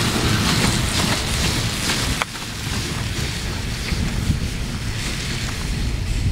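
Wind buffeting the microphone while an electric snowmobile tows a second sled over snow. The noise drops abruptly about two seconds in.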